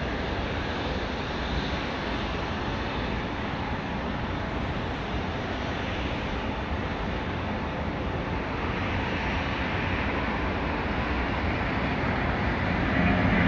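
Boeing 757-200 jet engines, Rolls-Royce RB211s, spooled up to takeoff power during the takeoff roll: a steady jet rush that grows gradually louder over the second half.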